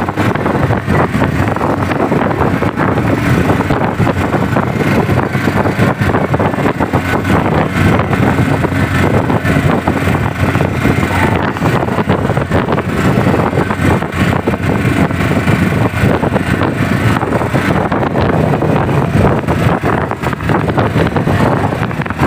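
An engine running steadily at an even speed, with no clear changes in pitch.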